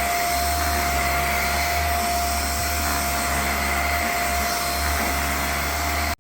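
Raycop Lite handheld allergen vacuum running steadily, with a high whine over its motor noise. It cuts off suddenly near the end.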